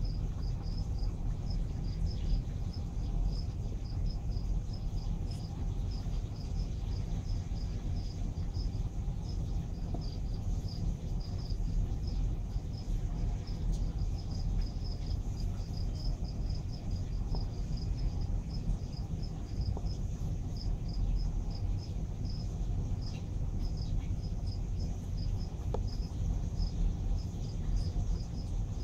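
A cricket chirping steadily at a high pitch, about three chirps a second, over a louder, steady low rumble.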